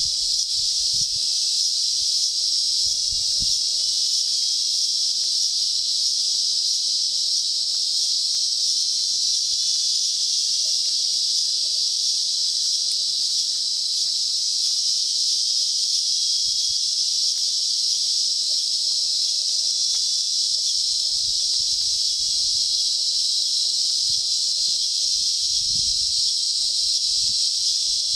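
Rainforest insect chorus: a steady, high-pitched shrill drone of many insects calling at once, holding at an even level throughout.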